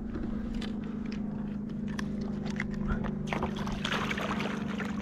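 A redfish splashing in shallow water as it is released over the side of a kayak, a burst of splashing beginning about three seconds in, after a few light handling clicks. A steady low hum runs underneath.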